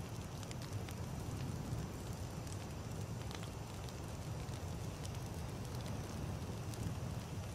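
Wood campfire burning: a low steady rumble with scattered small crackles and pops from the burning wood.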